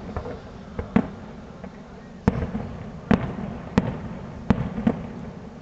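Aerial fireworks shells bursting in an irregular series of sharp bangs, roughly one every half second to second. The louder bangs are each followed by a brief low rumble.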